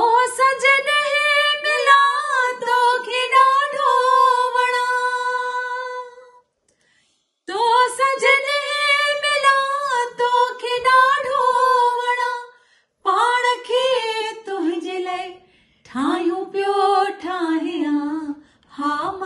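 A woman's voice singing a Sindhi song unaccompanied, drawing out long held notes. Two long phrases of about six and five seconds with a short breath between, then shorter phrases that fall lower in pitch near the end.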